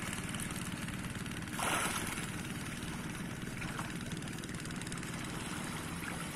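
A small engine running steadily, with a short splash of water about a second and a half in.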